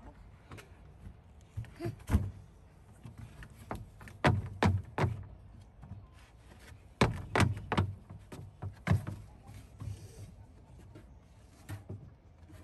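Irregular knocks and thumps on a wooden playground play structure as a toddler climbs about on it, with the sharpest hits in clusters about two, four to five, and seven to nine seconds in.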